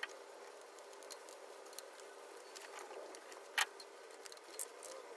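Faint, scattered clicks and taps of tools and engine parts being handled during reassembly, the sharpest about three and a half seconds in, over a faint steady hum.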